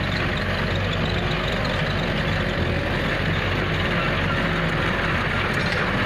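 Diesel farm tractor engines running steadily while pulling trolleys loaded with mud.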